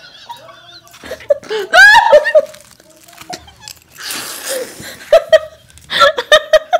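Two women laughing and giggling hard, with a high rising squeal of laughter about two seconds in and a short breathy puff a couple of seconds later, then quick pulses of laughter near the end.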